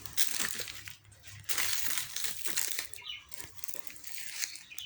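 Rustling and crackling of leaves and twigs in three bursts, with faint bird chirps about three seconds in.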